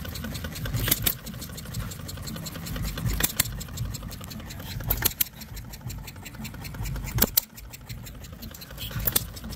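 Scale-model horizontal side-shaft gas engine running hit-and-miss: it fires with a sharp pop about every two seconds and coasts on its flywheel in between. There are five firings in all, spaced unevenly.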